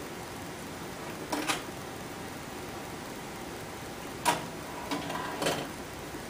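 Steady hiss of an aquarium bubble wall, air streaming up through the water, with a few short sharp clicks or pops: two together about a second and a half in, then several between about four and five and a half seconds in, the first of these the loudest.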